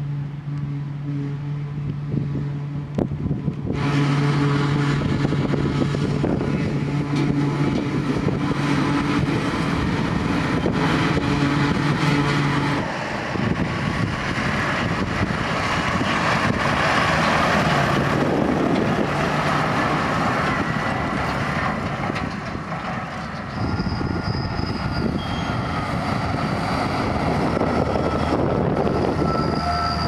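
Heavy farm machinery at grass silage harvest. First a Claas Jaguar 940 self-propelled forage harvester runs with a steady engine hum as it chops and blows grass into a trailer. Then the rougher rumble of tractors pulling loaded silage tipper trailers driving past. The sound changes abruptly a few times, at about 4, 13 and 24 seconds in.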